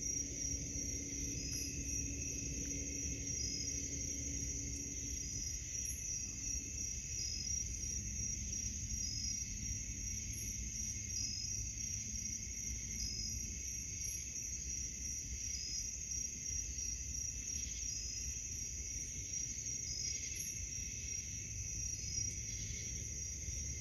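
Night insects calling in a steady high drone, with a short chirp repeating about once a second, over a low rumble.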